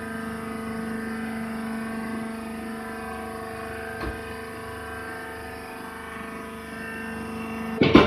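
Hydraulic press baler's power unit (electric motor and hydraulic pump) running with a steady hum of fixed pitches while the bale is wire-tied by hand. A light click about halfway, and a loud clatter right at the end.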